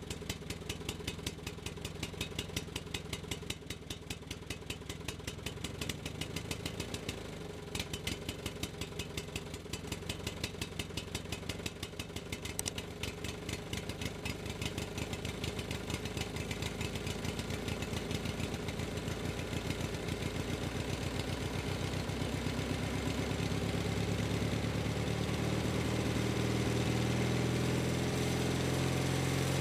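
An engine idling with a steady rapid beat, growing louder and rising a little in pitch over the last several seconds as it speeds up.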